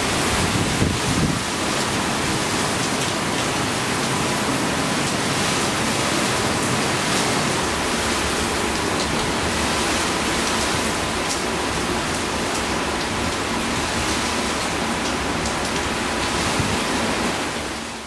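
Heavy typhoon rain pouring down in a steady, dense hiss. Wind buffets the microphone with an uneven low rumble in the first second or so.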